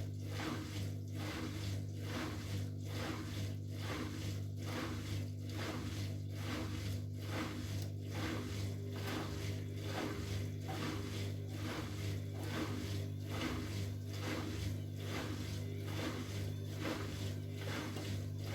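Bosch Maxx WFL 248Y front-loading washing machine, its drum turning with a steady motor hum and a regular swish a little more than once a second. The slow, even rhythm fits the drum tumbling the laundry to even out an unbalanced load before spinning.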